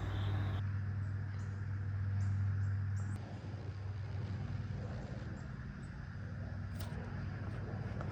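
An engine running with a steady low hum, dropping in level about three seconds in.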